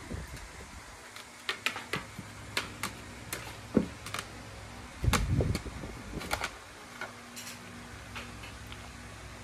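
A small dog nibbling and scratching at its itchy coat on a plastic chair: scattered sharp clicks and smacks, with one heavier thump about five seconds in.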